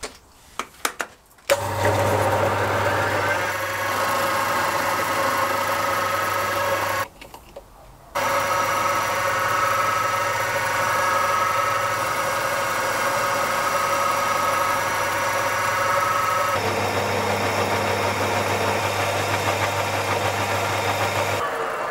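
Halifax 524 metal lathe running under power: a steady motor hum with several held whining tones, first during a turning cut and then, after a change about sixteen seconds in, while a twist drill is fed into the spinning work from the tailstock. A few sharp clicks come first, and the sound drops out for about a second around seven seconds in.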